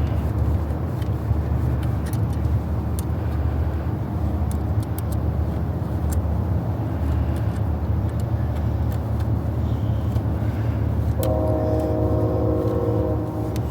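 Steady low rumble, with faint scattered clicks and taps on top. Near the end a short run of steady tones joins in for about two seconds.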